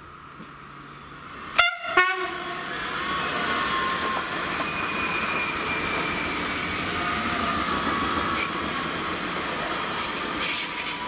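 Red regional electric multiple unit gives two short horn blasts about two seconds in, then runs past with steady rolling wheel noise and a whine that falls in pitch. A few sharp clacks from the wheels come near the end.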